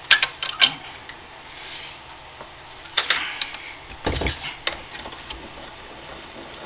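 Metal clicks and knocks of a flagpole tube being handled and set in the jaws of a bench vise: a few clicks at the start, a cluster about three seconds in, and a heavier knock just after four seconds.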